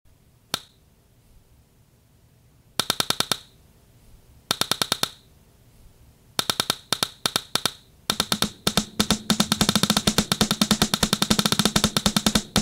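Sharp hand claps, the kind made to sync audio: a single clap, then three short bursts of rapid claps, then fast continuous clapping from about eight seconds in, with a steady low tone underneath.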